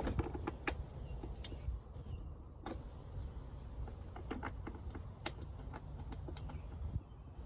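Irregular clicks and light taps of 12 mm bolts and plastic body panels being handled during ATV reassembly, over a steady low hum.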